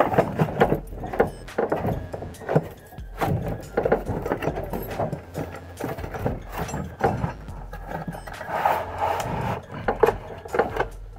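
Handling noise as a cardboard box is opened and a set of steel ring spanners in a plastic holder is slid out: irregular cardboard scrapes and rubs with light knocks.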